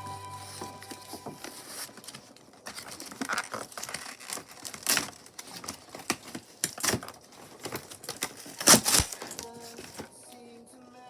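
Toy packaging being handled and opened: crinkling and rustling of plastic and cardboard with scattered clicks and short noisy bursts, the loudest a little under nine seconds in.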